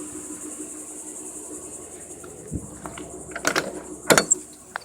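Motorhome engine idling as a steady low hum under a steady high-pitched buzz, with a few sharp clicks and knocks in the second half.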